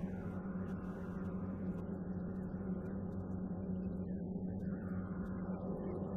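Steady in-flight drone inside a KC-135R tanker's boom pod: engine and airflow noise rushing evenly, with a low steady hum underneath.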